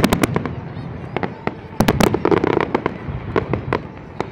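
Fireworks display: aerial shells bursting in quick volleys of sharp bangs, a dense run at the start and another about two seconds in, then thinning out toward the end.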